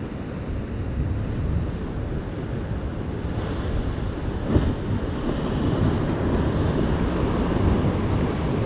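Sea surf rolling in, with wind buffeting the microphone and rumbling in the low end; the wind and surf swell louder about three seconds in, with a brief gust-like peak a little later.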